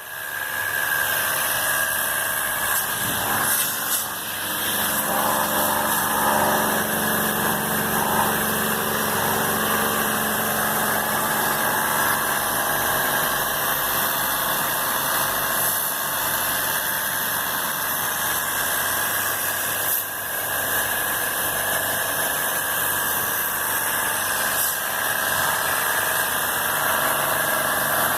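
A steady motor or machine running, with an even hiss and a few steady tones.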